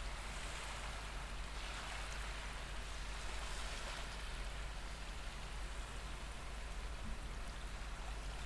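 Recorded ocean waves washing on a shore: a soft, continuous surf hiss that swells gently every couple of seconds.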